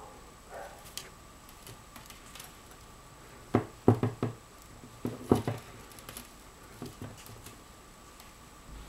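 A handful of sharp knocks and taps, bunched in two quick clusters about three and a half and five seconds in, with lighter ticks between them.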